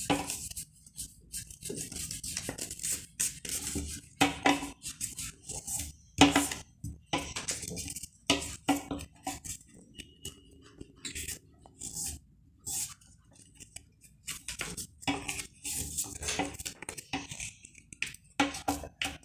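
A sheet of paper being folded and creased by hand: irregular rustles, crinkles and short scrapes as the folds are pressed flat, with brief pauses between.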